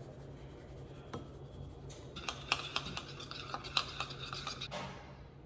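Metal spoon stirring tahini dressing in a small glass bowl, a run of quick scrapes and clinks against the glass from about two seconds in until near the end.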